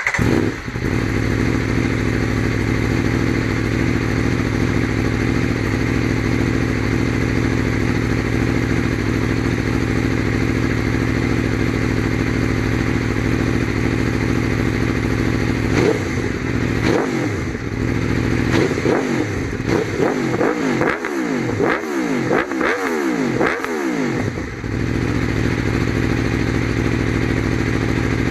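Sport motorcycle engine with an aftermarket exhaust idling steadily. From about halfway through it is blipped repeatedly, roughly seven revs rising and falling back, then it settles to idle again.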